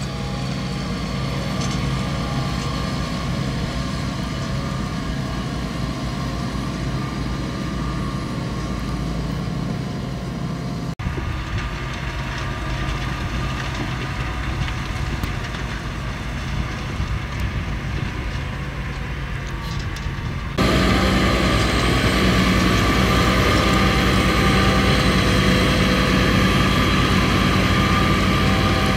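Fendt 728 Vario tractor's diesel engine running steadily under load while ploughing. It is heard in three shots joined by cuts about 11 seconds and 20 seconds in, and the last shot is clearly louder.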